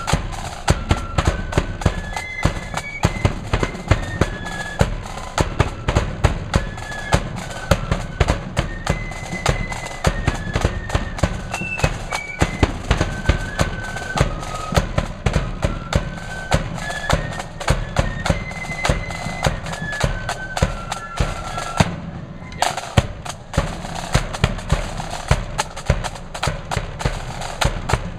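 Marching flute band playing a tune, the flutes carrying the melody over rapid snare drum rolls and a steady bass drum beat.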